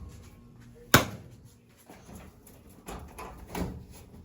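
Hands working on a clothes dryer to remove its door switch: one sharp knock about a second in, then a few softer knocks and handling noises.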